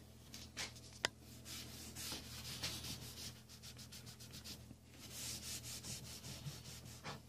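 Cloth rag rubbing black latex paint into the wooden lid of a box, a long run of faint, quick back-and-forth wiping strokes. A sharp click about a second in.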